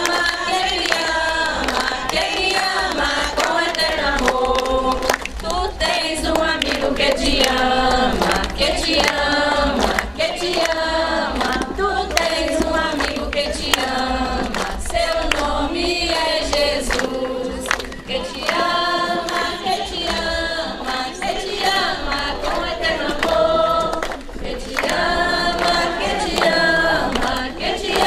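Congregation of many voices singing a hymn of praise together, with hand claps keeping time.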